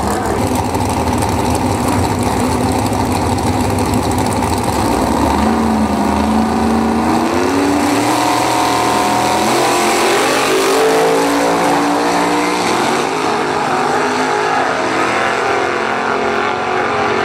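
Drag racing car engines at high revs: a dense roar with tyre noise during a smoky burnout, then two drag cars launching off the line, their engine note climbing again and again as they accelerate away down the strip.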